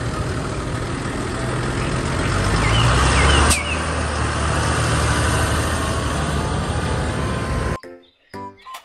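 Large farm tractor's diesel engine running as it drives, getting louder toward about three and a half seconds in. A sharp click comes at that point and the low rumble eases. The engine sound cuts off shortly before the end.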